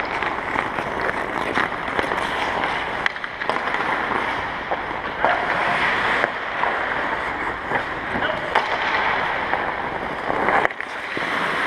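Ice hockey skate blades scraping and carving on the ice, with sharp clacks of sticks and pucks scattered through it.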